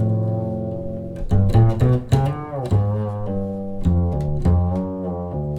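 Classical string music with low bowed and plucked strings (cello and double bass), played back as a listening demo through Rogers LS5/9 loudspeakers.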